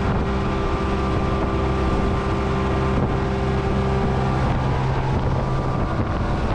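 Evinrude E-TEC G2 175 hp two-stroke V6 outboard running steadily with the boat planing at speed. Water rushes from the wake and wind buffets the microphone.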